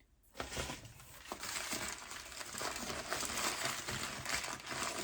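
Packing material crinkling and rustling continuously as a wrapped piece is handled and unwrapped, with many small crackles.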